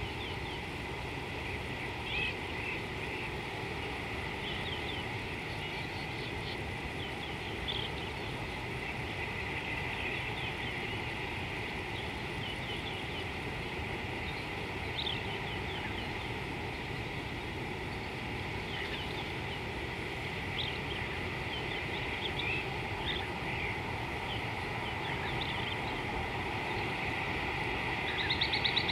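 Outdoor riverbank ambience: wild birds giving many short chirps and calls over a steady low rushing noise and a thin steady high tone, with a fast trill starting near the end.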